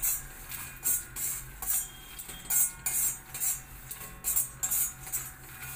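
A metal slotted spatula scraping and tossing roasted lotus seeds (makhana) around a kadai. The seeds rattle against the pan in repeated strokes, about two or three a second.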